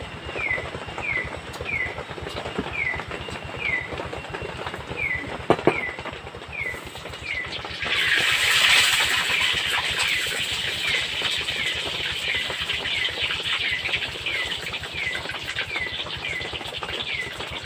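Hot oil in a wok over a wood fire sizzles, flaring up loudly about eight seconds in as the man works the frying snacks, then frying on steadily. Under it, a short falling chirp from a calling animal repeats roughly every half second.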